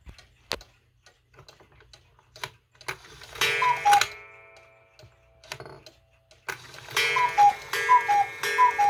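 Cuckoo clocks ticking, then cuckoo calls: two falling whistle notes blown by the bellows. One call comes from a small unmarked cuckoo clock about three and a half seconds in. From about seven seconds, a Schneider cuckoo clock with a Regula movement calls three times in quick succession.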